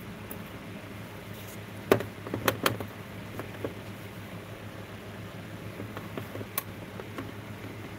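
Sharp knocks and clicks of a soldering iron and a soldered sea-glass figurine being handled on a metal work tray: a cluster of them about two seconds in, a few softer ones after, and one more click later. A low steady hum underneath.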